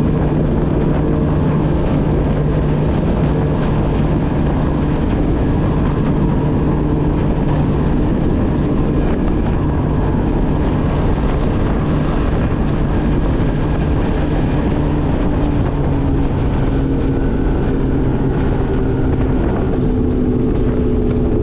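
Bass boat's outboard motor running hard at speed under a steady rushing noise. Its pitch steps a little lower about three-quarters of the way through.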